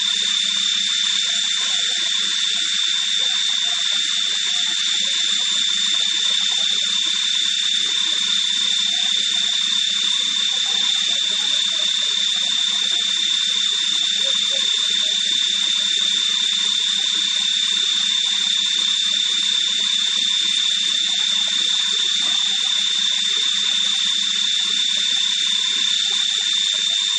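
Leadwell VE vertical machining centre running a cut: a steady hiss with a constant high-pitched whine and a low hum beneath, unchanging throughout.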